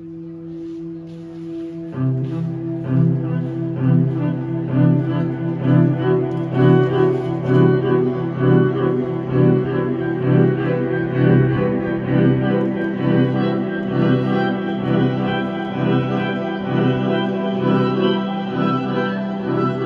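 Violin played through a small amplifier over a held low drone, growing louder; about two seconds in, a fuller part with a pulsing low bass line comes in.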